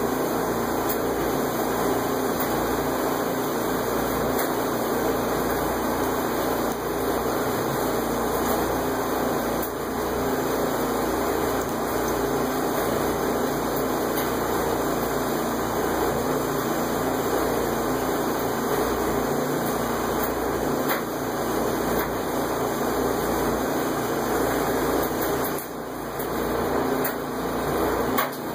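Steady, even rushing noise with no clear tone, dipping briefly near the end.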